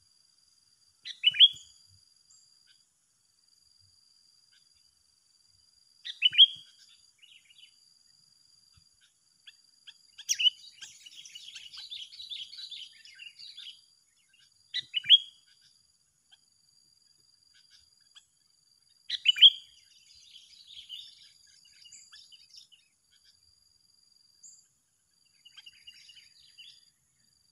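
Sooty-headed bulbuls (kutilang) calling: five loud, sharp calls about four to five seconds apart, two of them running on into a few seconds of bubbly chattering. A faint steady insect trill sits underneath.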